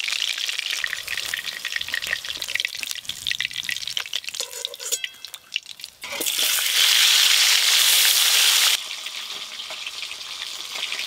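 Fish frying in hot oil in a wok, crackling and spitting, with the scrape and clink of a spatula. About six seconds in a louder, even sizzle sets in for nearly three seconds and cuts off suddenly, then the oil goes on sizzling more quietly.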